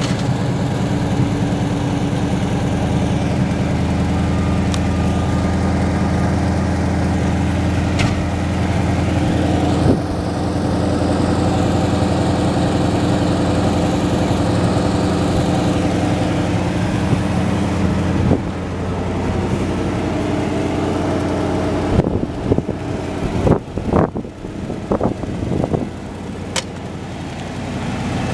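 The carbureted 460 V8 of a 1977 Lincoln Continental Town Car idles steadily shortly after a cold start, heard from behind the car. About two-thirds of the way through the engine sound drops, and near the end a few sharp knocks and thumps cut in.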